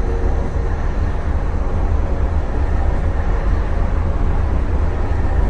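Loud, steady low rumble under a rough hiss, with no separate bangs or voices standing out.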